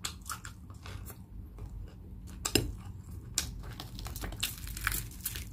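Crisp deep-fried pork-knuckle skin crackling and clicking in scattered bursts as it is pulled apart by hand, the sharpest crack about two and a half seconds in, over a low steady hum.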